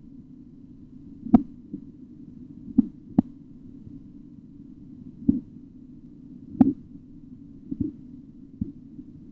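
Korotkoff sounds heard through a stethoscope during auscultatory blood pressure measurement. They come as sharp taps at uneven intervals over a steady low hum.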